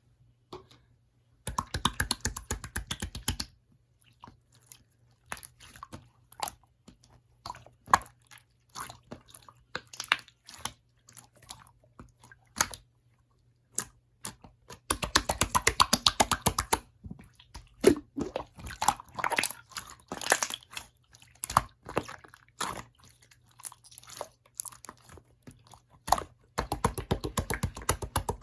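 Slime being squished, pressed and poked by hand, making sticky, crackling clicks and pops: three dense runs of rapid clicks near the start, around the middle and near the end, with scattered single clicks in between.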